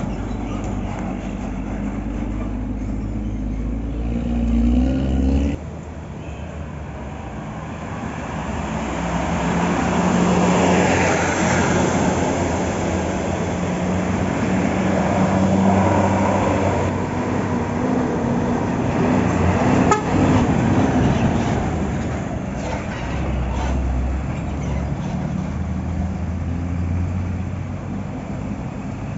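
Diesel coach buses driving past one after another, engines running and accelerating, with road noise that swells and fades as each goes by; the sound changes abruptly about five seconds in.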